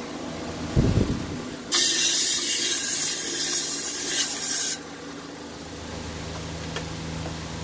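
A loud hiss of pressurized air or spray, lasting about three seconds and starting and stopping abruptly, preceded by a dull knock about a second in.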